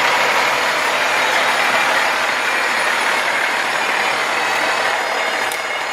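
Fire rescue truck driving past at close range, a loud, steady rush of vehicle noise that eases a little near the end.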